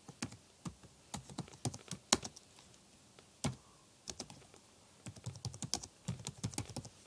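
Typing on a computer keyboard: separate keystrokes at an uneven pace, a few scattered clicks at first, then a quicker run of keys from about five seconds in.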